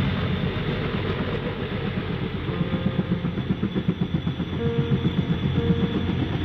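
A dense, rumbling, rattling mechanical noise, train-like, pulsing rapidly, with the pulsing growing stronger in the second half and a few faint held tones over it.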